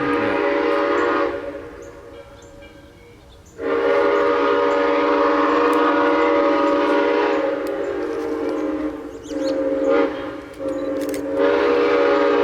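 Steam locomotive chime whistle blowing several tones at once: a blast ending about a second in, a long blast, a short one, then another long one near the end, the long-long-short-long pattern of a grade-crossing signal.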